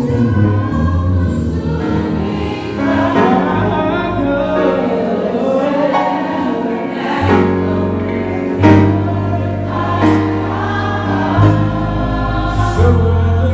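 Gospel choir singing live behind a male lead vocalist, with band accompaniment holding deep, sustained bass notes and a few sharp percussive hits.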